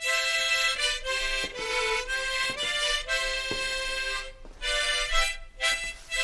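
Several harmonicas played together by children, a tune in steady held notes and chords. The playing breaks off briefly for breath about four and a half seconds in and again near the end.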